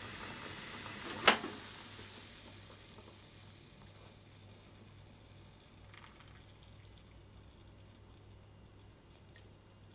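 Water at a full rolling boil in a small saucepan on a gas burner, hissing and bubbling. A single sharp knock about a second in, then the boiling dies down to a faint simmer.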